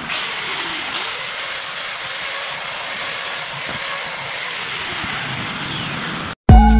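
Handheld electric angle grinder with a sanding disc running against the edge of a wooden block: a steady high whine over a rough, even hiss. It cuts off abruptly about six seconds in, and music starts near the end.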